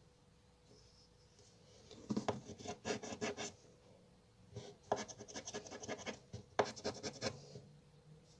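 A crossword scratch-off lottery card being scraped with a small round scraper to uncover letter squares. It comes in two bouts of quick rasping strokes, the first about two seconds in and the second from about halfway until shortly before the end.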